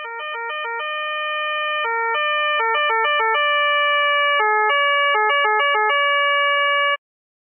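Austrian police two-tone electronic siren switching between a lower and a higher tone, sometimes in quick flicks and sometimes holding one tone for a second or more. It grows steadily louder and stops abruptly near the end.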